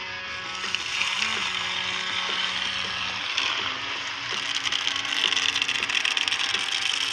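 Cola pouring from a tipped glass tank in a steady stream, splattering and fizzing onto grass, starting about a second in, over faint guitar music.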